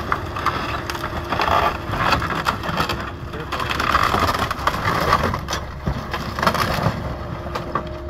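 Wooden building being crushed and torn apart by an excavator: a dense run of cracking, snapping and splintering timber over the steady hum of the machine's engine, with the loudest crunches about a second and a half in and again around four to five seconds.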